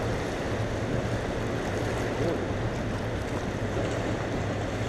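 Steady rush of water with wind buffeting the microphone, over a low steady hum.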